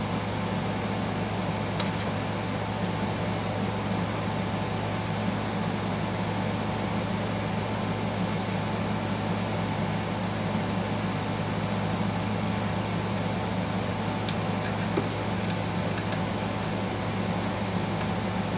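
Steady hum of a fan or air conditioner running, with a few faint small clicks about two seconds in and again near the end.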